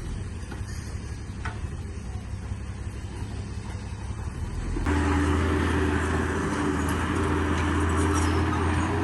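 Heavy diesel earthmoving machinery running: a steady low engine drone, then about halfway through an abrupt switch to a louder, closer engine with a steady hum and faint scattered ticks.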